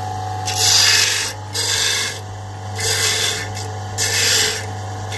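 Bench-mounted electric disc sander running with a steady hum while a cast resin bracelet is pressed against the spinning disc four times, each pass a harsh rasping grind lasting under a second. This is rough-sanding to take off the sharp edges of the resin.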